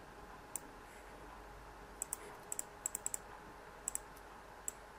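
Computer mouse clicking about a dozen times, many clicks in quick pairs and clustered near the middle, faint over a quiet room background.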